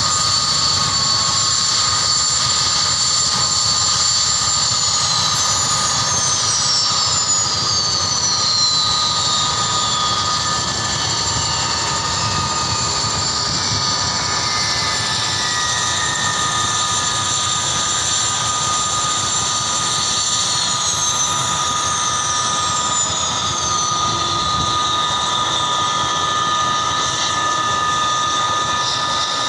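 Boeing CH-47 Chinook helicopter running on the ground: a steady high turbine whine from its twin turboshaft engines over a broad rumble of the turning rotors. Some of the whine tones slide down in pitch twice, first about five seconds in and again about twenty seconds in.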